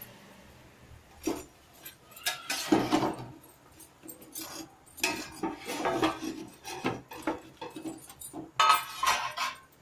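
Kitchen utensils and dishes handled, giving irregular clinks, knocks and rattles, the loudest at about three seconds and again near the end.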